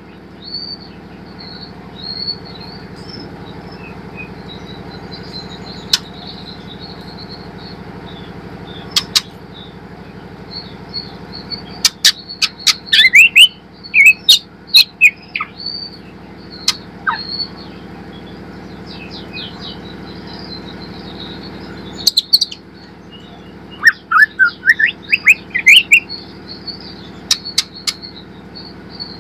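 White-rumped shama singing: quick sharp whistles, slurs and rising sweeps in two loud spells, over a continuous faint high twittering and a steady low hum.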